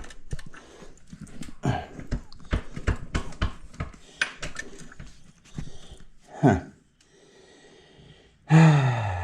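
Quick metallic clicks and knocks of hand tools on the motorcycle's axle and wheel, followed near the end by a short grunt and then a loud, falling, strained vocal exhale.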